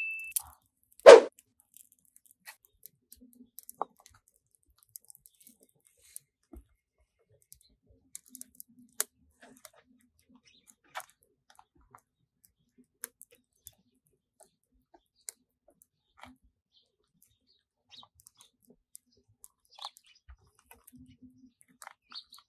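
Small fire of dry twigs crackling in a cement wood stove, with sparse scattered pops and snaps. One sharp knock about a second in.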